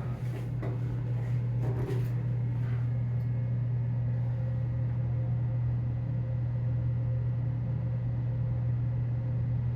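Steady low hum of a Mitsubishi passenger elevator running, with a few light clicks in the first two seconds.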